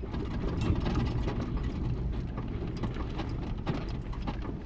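Off-road vehicle driving over a rough dirt track: a steady low rumble of engine and tyres, with frequent small clicks and knocks from the bumpy ground and rattling.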